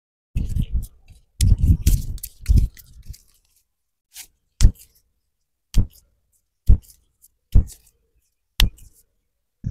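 Hand massage: hands squeezing and rubbing the arm and hand with soft low thumps, then five sharp clicks about a second apart as the hand and fingers are worked.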